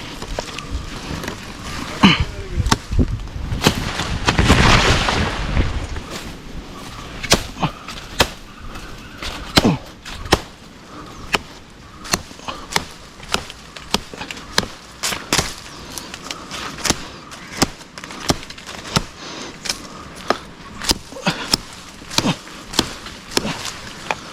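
Repeated sharp strokes of a knife hacking at fishtail palm stems, irregularly spaced at roughly one or two a second, with a longer noisy rustle about four to six seconds in.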